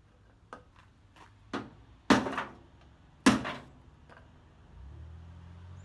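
Hammer striking the sheet-steel front apron of a VW Beetle to knock out dents: a few light taps, then two loud blows about a second apart. A low steady hum comes in near the end.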